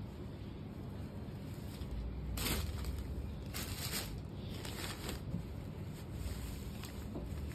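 Cotton saree cloth rustling as it is handled and unfolded, in a few short bursts about a second apart over a low steady hum.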